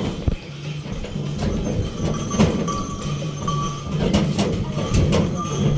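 Bullock cart pulled by two zebu oxen rolling along a sand track: irregular knocks and clatter from the wooden cart and the oxen's hooves.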